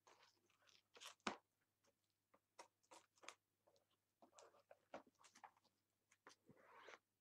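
Faint crinkling and rustling of a plastic packaging wrapper being handled, with scattered small crackles and taps and a longer rustle near the end.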